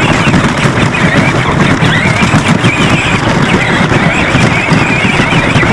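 Plastic wheels of a battery-powered John Deere Gator kids' ride-on crunching and crackling over dry leaves and twigs on a dirt trail, with the electric drive giving a wavering whine.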